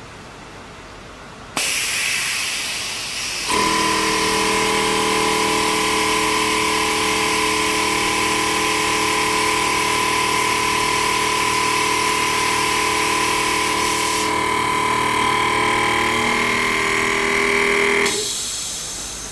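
A machine comes on suddenly with a hiss, then runs steadily with several steady hums and whines mixed in, and stops after about fifteen seconds.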